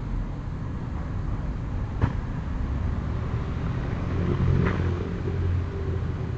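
Steady street noise with a single sharp knock about two seconds in and a softer noise just before five seconds. A vehicle engine runs louder from about four seconds in.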